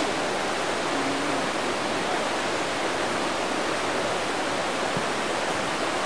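Steady rushing of flowing stream water, an even hiss with no breaks.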